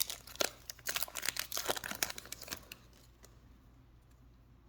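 Foil booster pack wrapper crinkling, a dense run of crackles over the first two and a half seconds or so, then only faint rustling.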